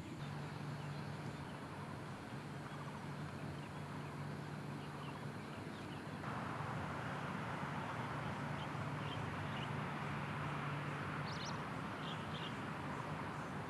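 Outdoor dawn ambience: a steady background hum and hiss with a few faint, short bird chirps. It gets a little louder about halfway through.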